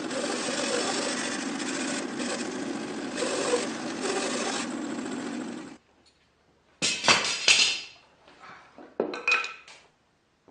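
A 20-inch bandsaw running and cutting lengthwise through a log; the sound stops abruptly a little over halfway through. After a brief silence come several sharp wooden clatters and knocks.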